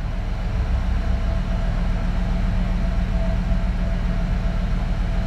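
Nissan Y62 Patrol's 5.6-litre V8 idling, a steady low rumble.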